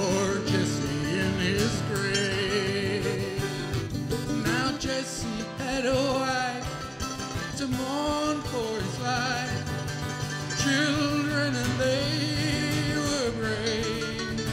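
Live acoustic folk music: an acoustic guitar and a mandolin playing together at a steady pace.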